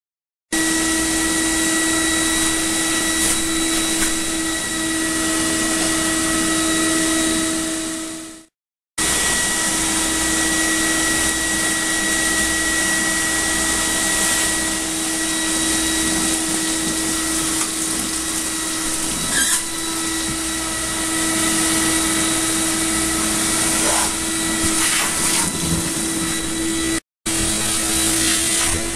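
Electric blower motors of water-damage drying and extraction equipment running steadily: a loud rushing drone with a constant mid-pitched whine. The sound fades out and stops about eight seconds in, resumes, and drops out again for a moment near the end.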